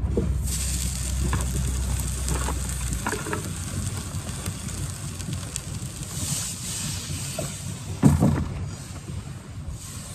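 Hot frying pan sizzling with a steady hiss that slowly fades, and a sharp knock about eight seconds in.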